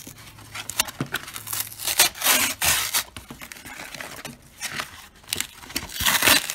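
Corrugated-cardboard mailer being torn open by hand, ripping and crinkling in uneven rasps, with the loudest tears about two seconds in and again near the end.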